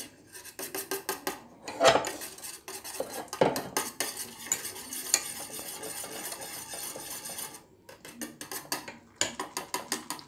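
A wire hand whisk beating hot milk in a stainless steel saucepan, with rapid, continuous clicking and rattling of the wires against the pan and a few louder knocks. The milk is being whipped to a froth for cappuccino.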